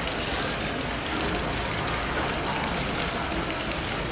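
Steady splashing, hissing water noise in a polar bear's pool as the bear swims just under the surface.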